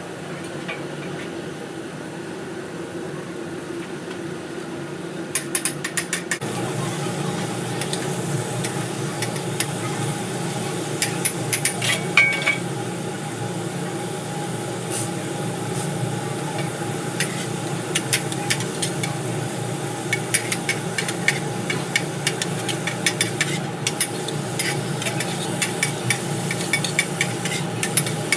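Cooking-utensil clatter: many short clicks and knocks of utensils against cookware, starting about five seconds in, over a steady hum that grows louder about six seconds in.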